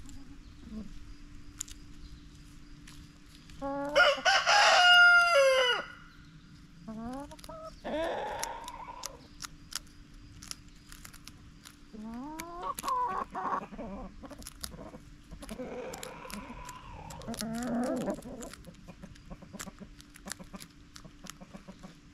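Backyard hens clucking and calling while they feed, with a rooster crowing once, about two seconds long, about four seconds in: the loudest sound. Small pecking and scratching ticks throughout.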